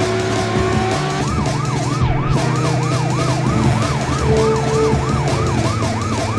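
Police siren in a fast yelp, rising and falling about three times a second, starting about a second in, over the steady running of a car engine at speed.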